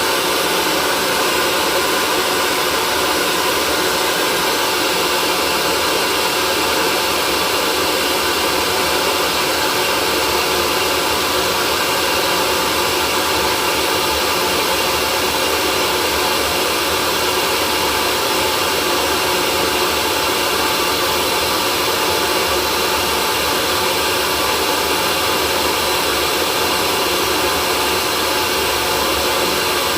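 Hair dryer running steadily: an even rush of air with a faint, unchanging motor hum.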